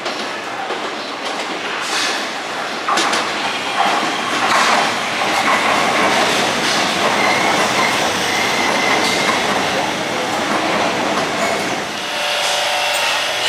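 Cairo Metro train running on the rails: a steady rumble with clatter over the rail joints and a thin wheel squeal in the middle. A steadier whine comes in near the end.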